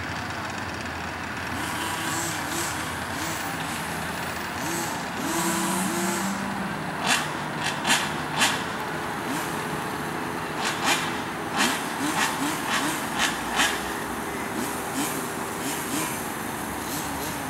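Small two-stroke petrol engines of 1/5-scale radio-controlled cars running on the grass, their pitch wavering up and down, with a string of short, sharp throttle blips in the middle.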